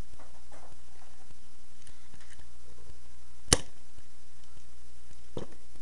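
A sharp plastic click about halfway through as a part of a Transformers Warrior Class Bumblebee toy figure is moved, then a fainter click near the end, with light handling rustles over a steady low hum.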